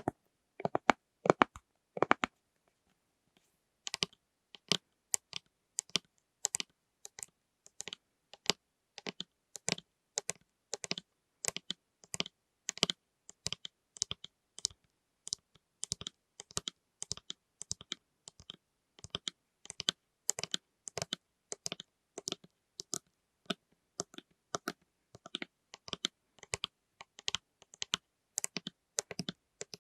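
Tapping on plastic lids: quick, uneven clicks, several a second, with a short pause about two to four seconds in.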